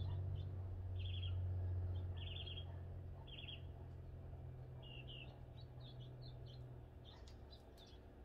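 Birds chirping: short high trilled calls about once a second, then quicker scattered chirps in the second half. Underneath runs a low hum, the loudest sound, which fades away near the end.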